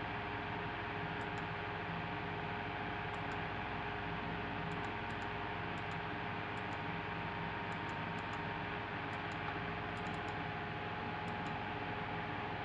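Steady hum and hiss of room background noise, with a few faint clicks scattered through.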